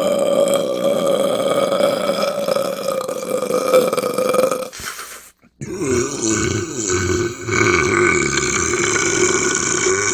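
Two long, drawn-out human burps in a row, each lasting about five seconds, with a short break about halfway through; the second is lower in pitch than the first.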